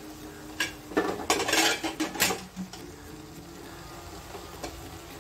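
Kitchen utensils knocking and scraping against a cooking pan: a few sharp clinks and a short scrape in the first couple of seconds, then only quiet stovetop background.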